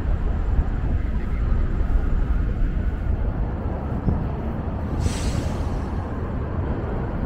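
Steady low rumble of a subway train crossing the Manhattan Bridge overhead, with a short hiss about five seconds in.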